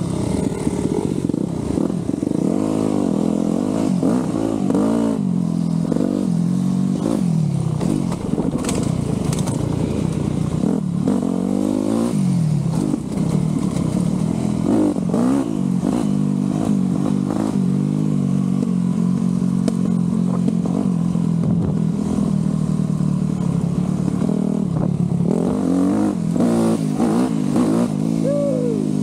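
Dirt bike engine on a trail ride, its pitch repeatedly climbing and dropping as the rider revs it up and backs off through the gears, with a few short knocks along the way.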